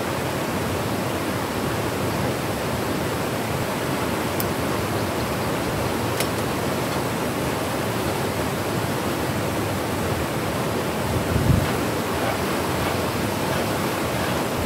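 Whitewater river rapids rushing over rocks in a steady, even roar of water, with one brief low bump a little past two-thirds of the way through.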